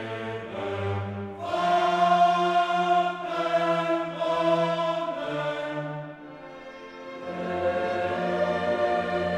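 Choral music: voices singing long held notes, briefly quieter a little past the middle before swelling again.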